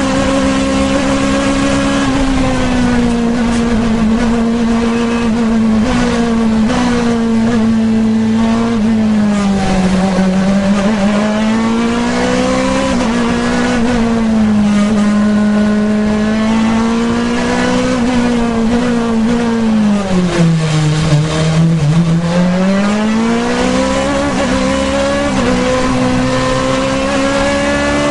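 Osella CN2 sports-prototype's two-litre racing engine running at high revs, heard from on board in the open cockpit. Its pitch holds high and dips twice, gently about ten seconds in and more deeply about two-thirds of the way through, as the car slows for bends, then climbs again under acceleration.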